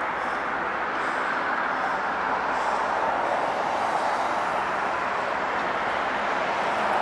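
MBTA commuter rail diesel locomotive hauling a passenger train slowly through the yard: a steady, even running noise of engine and wheels over city background.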